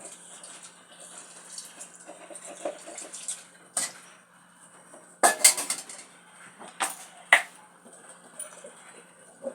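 Sharp clinks and knocks of hard objects being handled, a few single ones and a louder cluster about five seconds in, over a steady low hum.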